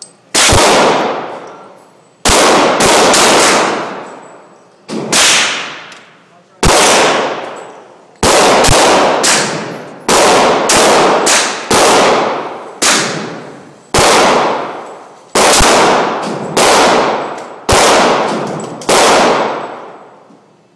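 A .40 caliber Glock pistol fired about twenty times, some shots single and some in quick strings of two to four. Each shot is very loud, with a long echoing tail.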